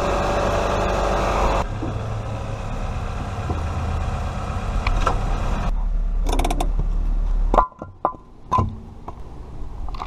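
Car engine idling with an exhaust leak, the ticking kind of audible; the owner traces the leak to a downpipe flange gasket. Near the end it drops quieter, with a few short clicks.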